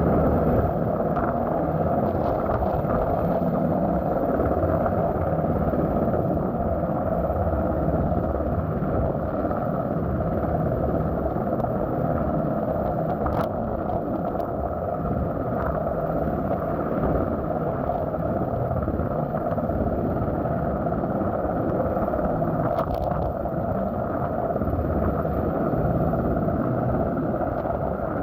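Coast Guard helicopter hovering, its rotor and engine making a loud, steady rumble.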